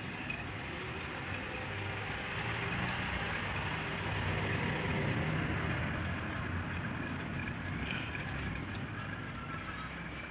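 R134a refrigerant hissing steadily out of a car's air-conditioning system through the manifold gauge hoses as the system is discharged, with a steady low rumble underneath.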